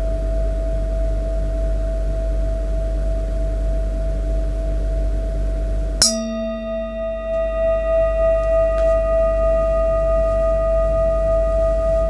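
A metal singing bowl rings with one steady tone, then is struck again about halfway through. The strike gives a sharp attack with bright high overtones that fade within about a second, and the main tone then rings on, pulsing slowly.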